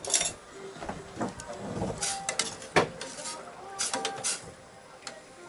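Galley clatter of cookware and utensils being handled: a string of sharp knocks and clicks, the loudest almost three seconds in.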